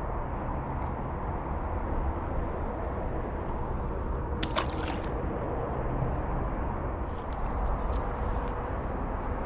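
A sunfish tossed back into the creek lands with a brief splash about four and a half seconds in, over a steady low rumble. A few light clicks follow near the end.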